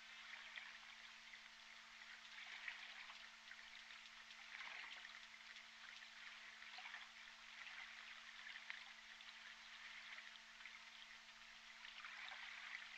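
Faint underwater hydrophone sound: a steady crackling hiss with clusters of clicks every few seconds, as from J pod orcas echolocating, over a low steady electrical hum.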